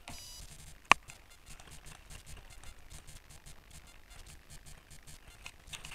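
A single sharp pop about a second in, over faint, rapid clicking and hiss.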